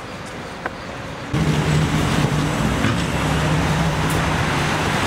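Steady street traffic noise. About a second in it jumps abruptly louder, with the low hum of a nearby vehicle engine running.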